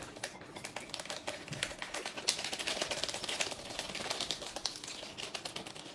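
Plastic drink sachet crinkling and being torn open by hand, a dense, irregular run of small crackles and clicks.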